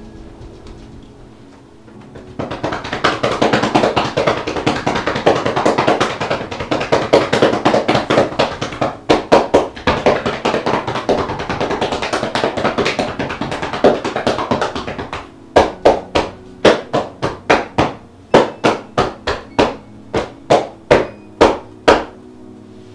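Percussive tapping massage, hands striking the legs through a towel: a fast, dense patter of slaps starting a couple of seconds in and running about twelve seconds, then slower, louder single slaps about two a second.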